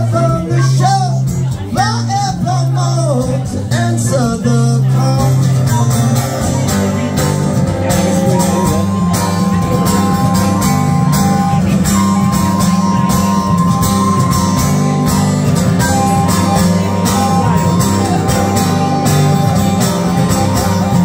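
Live acoustic guitar strummed steadily while a wooden flute plays a melody over it, with long held flute notes through the second half.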